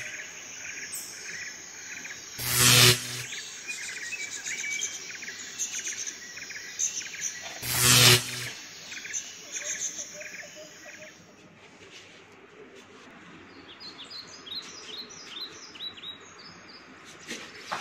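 Small birds chirping and twittering, with many short high calls. Two short, loud bursts of noise about 3 s and 8 s in stand out above them.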